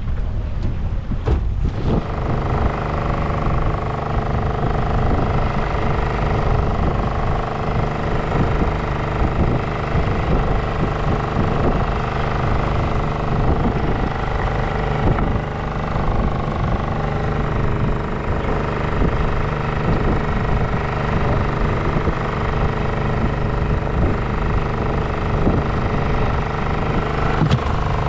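An engine on a fishing boat running steadily at an even pitch, coming in about two seconds in after a moment of wind and sea noise.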